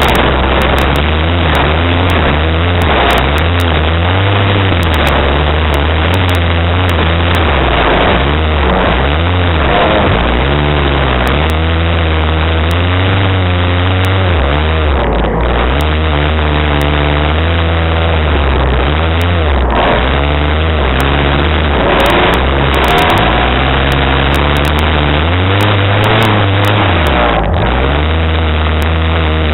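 Honda Prelude crazy-cross race car's engine at racing load, picked up by a roof-mounted camera: the revs rise and drop again and again, stepping with gear changes and lifts.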